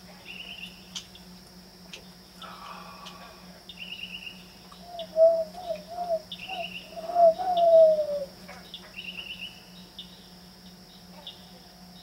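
A northern mockingbird singing at night and mimicking car alarms, with short high trilled phrases repeated every couple of seconds. About five seconds in comes a louder, lower run of hooting notes, the last one drawn out and falling.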